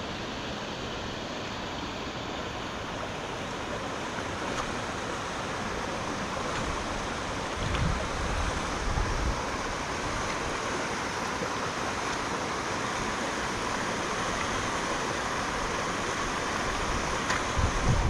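Fast-running river rushing steadily, swollen with rainwater running down off the hillside. A few low thuds come about eight seconds in and again near the end.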